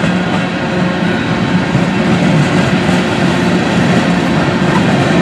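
Norfolk Southern freight cars (coil steel cars and autoracks) rolling past at close range: the steady, loud rumble of steel wheels on the rails.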